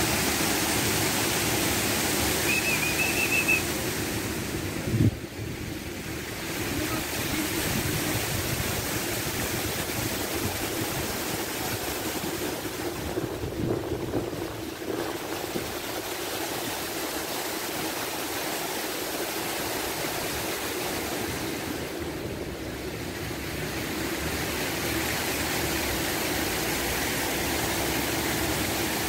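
Steady rushing and splashing of fountain jets falling into a pool, mixed with wind. A short high chirp comes just under three seconds in, and a single thump about five seconds in.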